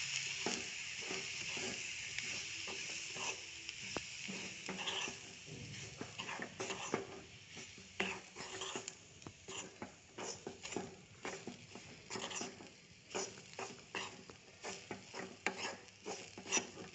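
Steel spatula stirring and scraping a dry mix of ground soya chunks, cabbage and onion around a black frying pan, with a frying sizzle that is strongest in the first few seconds and then fades. The scrapes come irregularly, often several a second.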